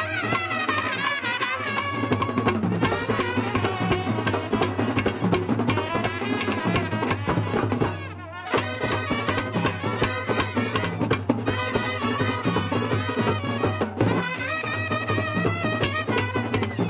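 Kerala bandset brass band playing a melody on brass instruments over drums. The music drops out for about half a second a little past halfway, then comes back.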